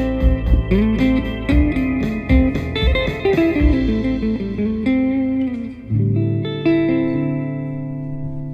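Hollow-body archtop electric guitar playing a jazzy single-note melody line. About six seconds in, a final chord is struck and left ringing, fading slowly.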